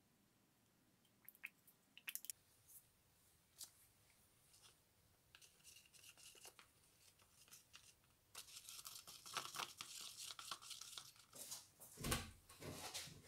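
A wooden stir stick scraping around a plastic cup, mixing hardener into polyester gelcoat. A few faint clicks come first, then the scraping grows dense and steady in the second half, with a single thump near the end.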